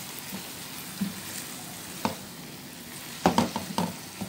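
Chopped onion, tomato and bell pepper sizzling in a frying pan as a spatula stirs and scrapes them around. A few short knocks of the spatula against the pan, with a quick cluster of them near the end.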